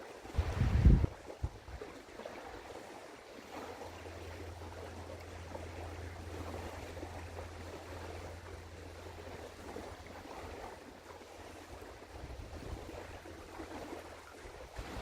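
Outdoor ambience of wind and river water. A gust buffets the microphone about a second in, and a steady low hum runs through the middle.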